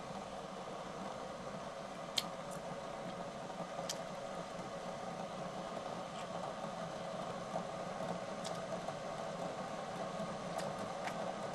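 Steady hum of a tabletop hot pot cooker running under a simmering pot, with a few sharp clicks of chopsticks against the dishes.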